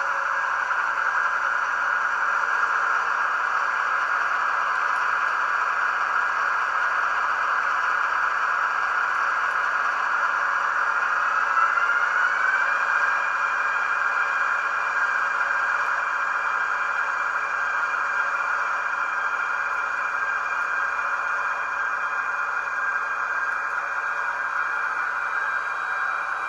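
Model-railway sound decoder (ESU LokSound 5) playing the diesel-electric engine sound of an ÖBB 2016 Hercules through the model locomotive's small speaker. The engine runs steadily, and a rising whine about ten seconds in marks the revs climbing before it holds at the higher pitch.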